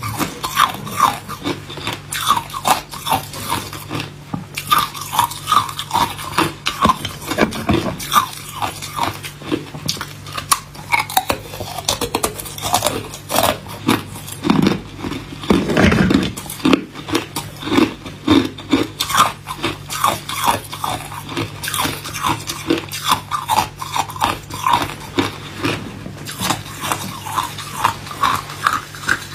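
A person biting into and chewing hard ice cubes, a dense run of quick, crisp crunches and cracks, with a heavier, longer crunch about halfway through.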